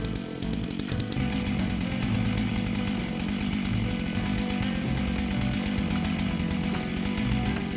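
Chainsaw running steadily under throttle, over background music with a bass beat.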